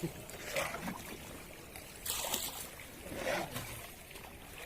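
Water splashing and trickling, with a brief louder splash about two seconds in.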